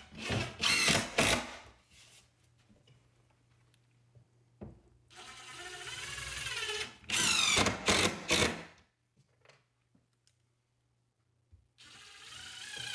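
Cordless drill/driver driving screws into the wooden speaker-box frame, in several short runs with pauses between. The motor's pitch wavers as each screw bites.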